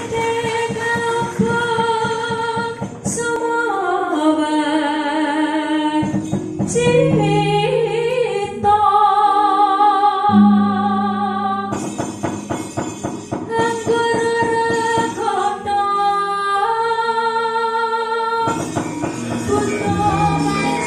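Javanese sinden (female singer) singing a long, held, gliding vocal line into a microphone, amplified over a sound system, with gamelan accompaniment including rapid metallic percussion.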